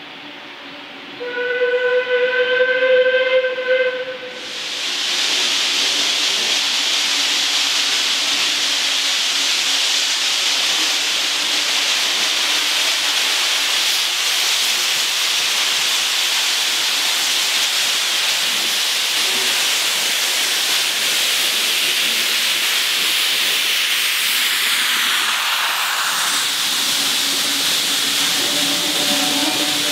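Steam locomotive whistle sounding once for about three seconds, about a second in. Then a loud, steady hiss of escaping steam from the 0-6-0 saddle tank engine as it runs past with its train.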